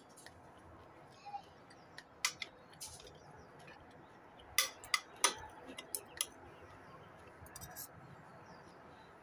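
Metal spoon and fork clinking and scraping on a ceramic plate while eating: scattered sharp clicks, the loudest few in a quick run about halfway through.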